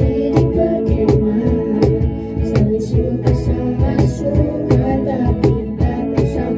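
A vocal group singing a song together, backed by guitars and a drum kit keeping a steady beat.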